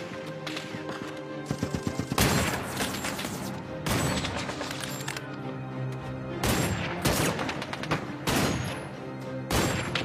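Rifle shots and short bursts of automatic gunfire in clusters every second or two, over a music score of held low notes.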